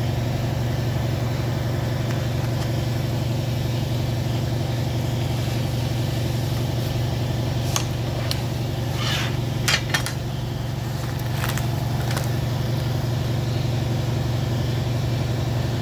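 Industrial pattern sewing machine running, with a steady motor hum and fast, even stitching. A handful of sharp clicks come around the middle.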